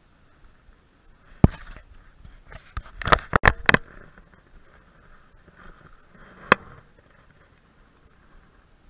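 Handling noise close to the microphone: sharp knocks and clicks from a baitcasting rod and reel being worked. One comes about a second and a half in, a quick cluster of four follows around the middle, and one more comes later, over a faint steady hiss.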